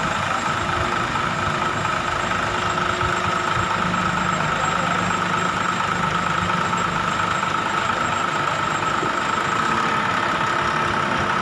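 Heavy diesel engine idling steadily, with a steady high whine over the engine noise.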